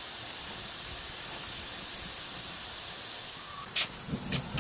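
Lawn sprinklers running: a steady high hiss of spraying water. A few short sharp clicks come near the end.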